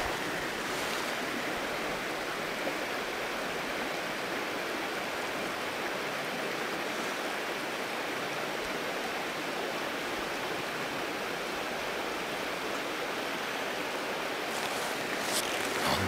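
Mountain stream water running steadily over stones: an even rushing hiss, with a few light clicks near the end.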